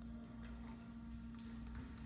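A few faint, sharp clicks of plastic Lego bricks being handled and pressed together, over a steady low hum.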